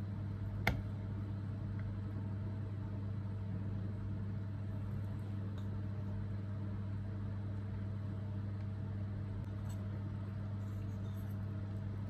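A steady low mechanical hum, with a single sharp clink of a metal spoon against a ceramic bowl about a second in and a few faint utensil ticks near the end.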